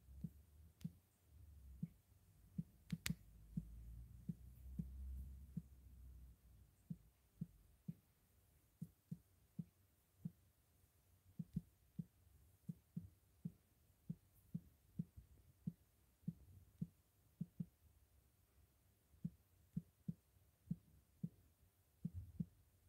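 Near silence broken by faint, deep knocks, one or two a second at an uneven pace, with a single sharp click about three seconds in and a low rumble during the first few seconds.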